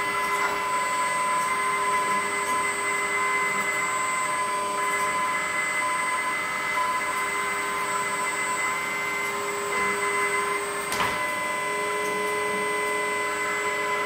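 Electric hydraulic pump of a 1/14-scale LESU Komatsu PC360 RC hydraulic excavator running with a steady whine while the boom is raised by hydraulic pressure. A single sharp click sounds about eleven seconds in.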